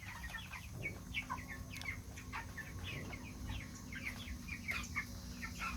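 A flock of chickens calling and clucking, many short overlapping calls at once, over a low steady hum.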